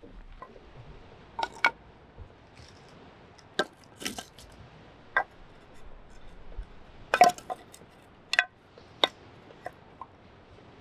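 Camp cookware and utensils being handled, making about eight separate sharp clinks and knocks at irregular intervals, the loudest about seven seconds in.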